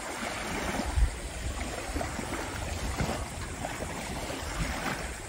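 Small waves lapping in shallow water at the shoreline, with wind buffeting the microphone in low thumps a few times.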